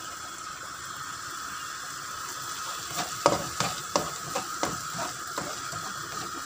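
Blended chili and spice paste sizzling as it is sautéed in a nonstick frying pan. From about halfway through, a spatula scrapes and taps against the pan several times a second as the paste is stirred.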